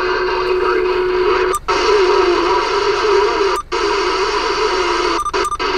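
CB radio speaker carrying skip: long-distance signals arriving as loud static with a steady low whistle and no clear voice. The noise cuts out briefly four times, twice in quick succession near the end.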